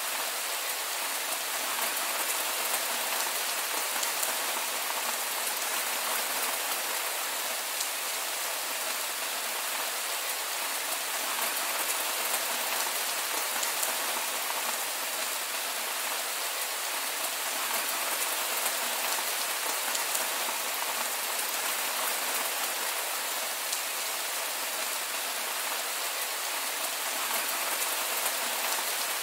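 Heavy rain falling steadily: an even hiss with a fine patter of drops.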